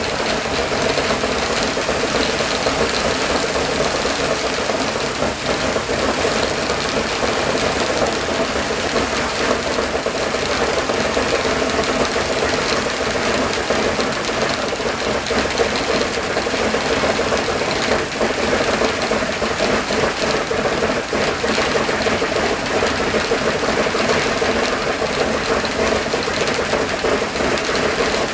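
Shvetsov ASh-82T fourteen-cylinder radial engine of an Ilyushin Il-14T running steadily at idle.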